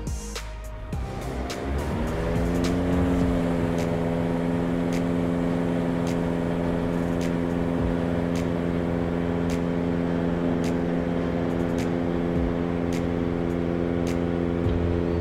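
Diamond DA40's engine and propeller coming up to takeoff power, rising in pitch over the first few seconds, then holding a steady full-power drone through the takeoff roll, heard from inside the cockpit. Faint clicks now and then over the top.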